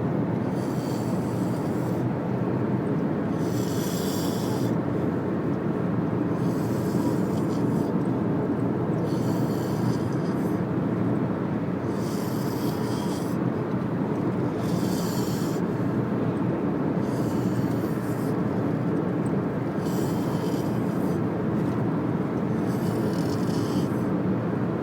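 A man snoring, his breaths coming about every two and a half seconds, over a steady low rumble.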